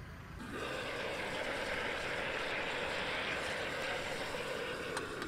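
Water boiling in a steamer pot, a steady hiss of steam that starts about half a second in.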